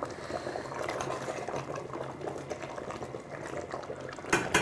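Thick chicken curry simmering and bubbling in a stainless steel pot, its gravy reduced to the point of sticking to the pot: a sign it is ready. A few sharp knocks near the end, like the spoon striking the pot.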